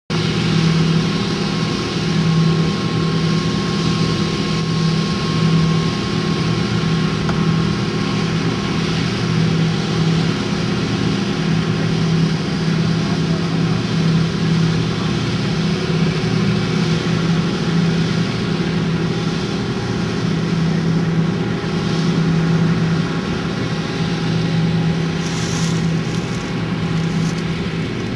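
John Deere combine cutting soybeans, its diesel engine and threshing machinery running steadily under load with a strong low hum.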